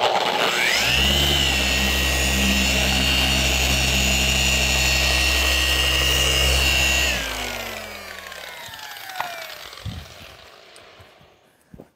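Dual-action car polisher with a fine foam pad spinning up, running steadily against the paint for about six seconds, then switched off and winding down with a falling whine.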